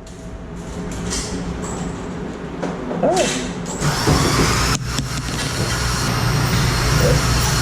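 Motorised target carrier running along its track, a steady mechanical whir and hiss that grows louder as it travels, with a few sharp clicks about five seconds in.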